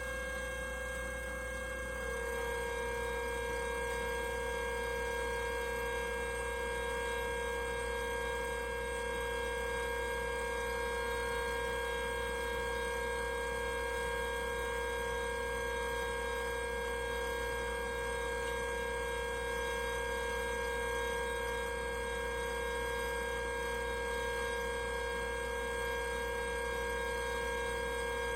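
Martha Stewart Kingstree 2-quart stainless steel whistling tea kettle whistling steadily at the boil, several pitches sounding together like a train whistle. About two seconds in, the pitch shifts slightly and then holds. A low steady hum sits underneath.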